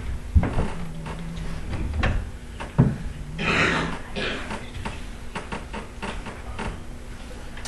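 A few scattered knocks and thumps with some rustling: handling noise in a small room. Two short low hums sound among them.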